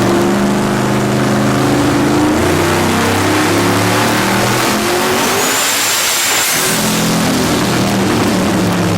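Turbocharged car engine running hard, its note holding and stepping in pitch. About five and a half seconds in, the engine note drops away and a high turbo whistle with a hiss sounds for about a second before the engine picks up again.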